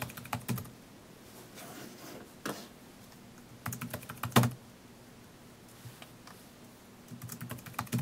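Computer keyboard keys typed in short bursts with pauses between them while a login name and password are entered. One key strike about four and a half seconds in is louder than the rest.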